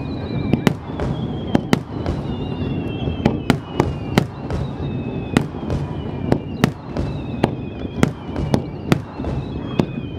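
Starmine fireworks barrage: aerial shells bursting in rapid succession, a sharp bang about every half second, with thin whistles gliding slowly down in pitch between the bangs.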